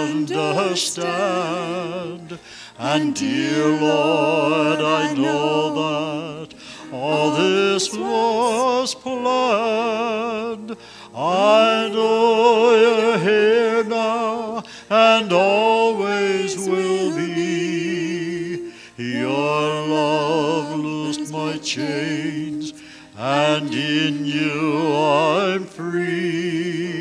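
A mixed vocal quartet of two men and two women singing a gospel song into microphones. The voices carry a wide vibrato, and the phrases are separated by short breaks.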